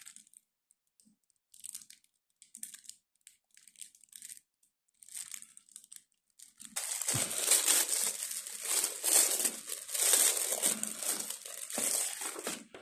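Clear plastic shrink wrap on a clothes-folding board package crinkling in the hands: a few short crinkles at first, then continuous crinkling and tearing from about seven seconds in as the wrap is pulled open.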